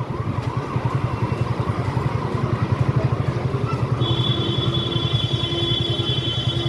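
Motorcycle engine running with a fast, even low pulse, on the move. A steady high tone comes in about four seconds in.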